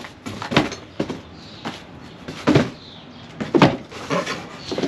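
Items being packed into cardboard shipping boxes: a series of knocks and thuds as they are set down against the cardboard, about six in all, the loudest about two and a half and three and a half seconds in.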